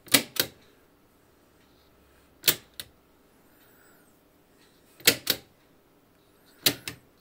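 Sharp mechanical clicks in four pairs, about every two seconds: a rotary control knob on the Philips radiogram being turned, each turn clicking twice through its detent switch.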